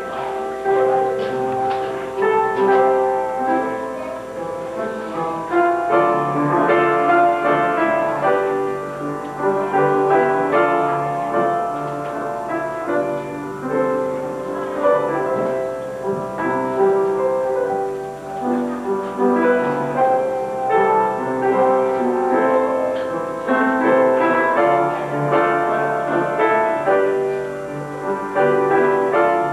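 Piano playing a slow, classical-style piece of sustained chords and melody, typical of wedding ceremony music.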